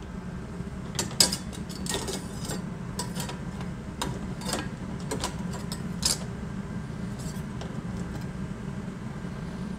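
Knives and kitchen utensils being put away: a run of scattered clicks, clinks and knocks over a steady low hum.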